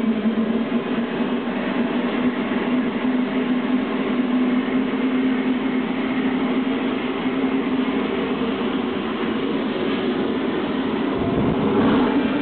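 Lucas auxiliary power unit, a small gas turbine, running steadily: a loud, even rush of noise with a constant low tone and a faint high whine, swelling slightly near the end.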